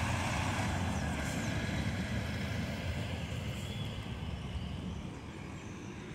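Double-decker coach's diesel engine running as the bus drives away, a low rumble that slowly fades.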